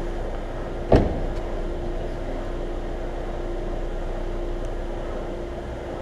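Boot lid of a BMW E39 M5 slammed shut about a second in: one sharp thump with a short echoing tail, over a steady hum.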